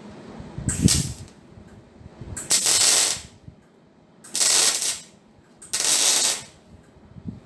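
Four short bursts of welding on steel, each a hissing crackle under a second long, with brief pauses between them: stitch or tack welds being laid.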